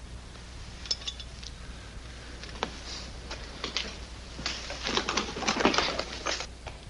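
Small scattered clicks and clatter that thicken into a dense run of sharp knocks about four and a half to six and a half seconds in, heard on an old television drama's soundtrack.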